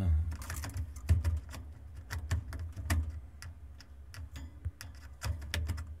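Eurasian magpie pecking and poking about in its wire cage: irregular sharp clicks and taps of its beak against the bars, bowl and tray, with a few dull thumps.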